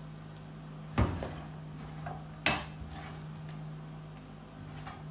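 Two sharp knocks of kitchenware, about a second in and again a second and a half later, over a steady low hum.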